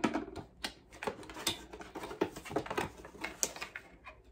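Cardboard box and paper packaging being handled and opened by hand: a run of short, irregular rustles, scrapes and taps.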